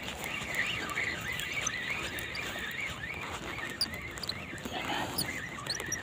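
Small birds chirping: a continuous wavering warble, with short high chirps joining in about two-thirds of the way through.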